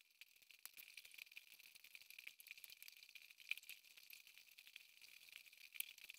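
Near silence: faint high hiss with light, irregular crackling ticks.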